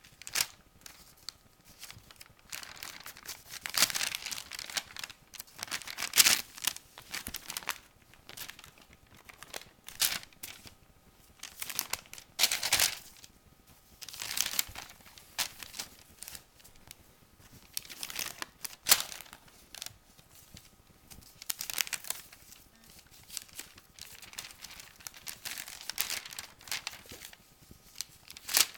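Newspaper crinkling in irregular bursts, every second or two, as a cat's paws bat, kick and claw at the sheets.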